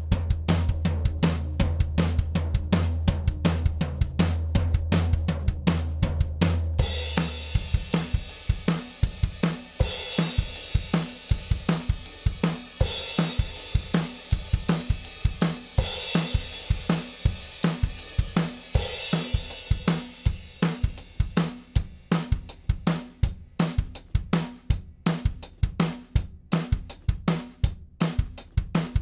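Recorded drum kit playing a steady, fast beat of kick, snare and hi-hat. A low bass note is held underneath for about the first seven seconds, then the drums continue alone, with a cymbal crash roughly every three seconds.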